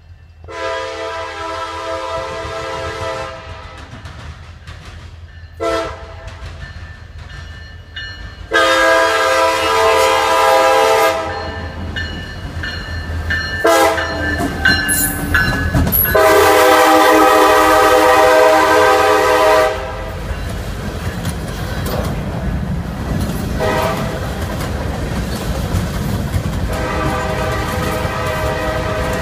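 Diesel freight locomotive sounding its multi-note horn in a series of long and short blasts as it approaches and passes close by, over the engine's rumble. After it passes, boxcars roll by with a steady rolling noise and clicking of wheels over the rail joints, and the horn sounds more faintly twice more.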